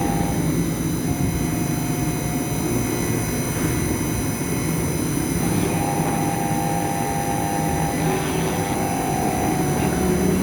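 CNC engraving machine running while it engraves a brass plate: a steady spindle whine, with a motor tone that comes and goes every second or two as the axes move.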